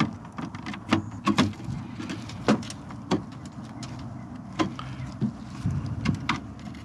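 Hard plastic parts of a radiator guard being handled and pushed together by hand, giving about eight irregular sharp clicks and knocks over a low steady rumble.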